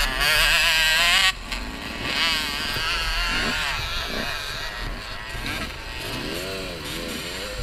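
Enduro dirt bike engines revving, their pitch wavering and swelling up and down; a loud burst of revving in the first second or so cuts off abruptly.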